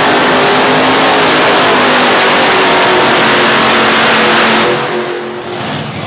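Modified pulling tractor with several supercharged piston engines running flat out under load on a pull, loud and steady. About five seconds in the throttle is closed and the sound drops away as the run ends.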